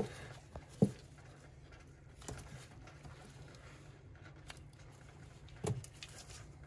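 Hand wire stripper working on the insulation of electrical cable wires: a few sharp snips and clicks, spaced a second or more apart.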